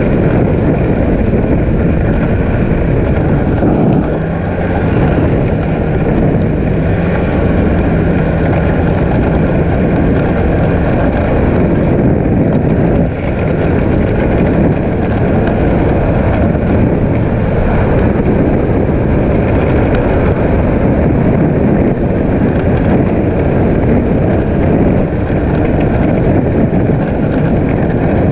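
Snowmobile engine running steadily under throttle while travelling along a snowy track, easing off briefly about four seconds in and again around thirteen seconds.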